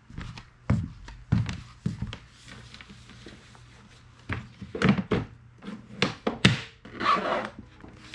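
Footsteps of rubber clogs on wooden floorboards and irregular thunks and knocks as fishing gear is handled, with a short scraping rustle near the end as a plastic cooler is lifted by its strap.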